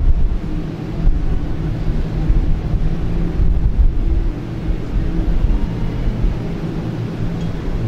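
Wind buffeting the microphone: a loud, steady low rumble with no clear separate knocks or voices standing out.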